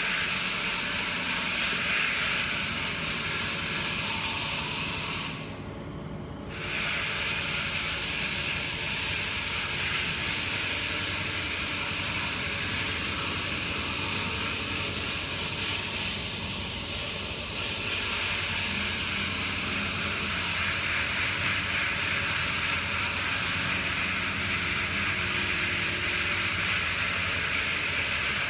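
Steady workshop machinery noise: an even hiss over a low machine hum, with the hiss cutting out briefly about five seconds in.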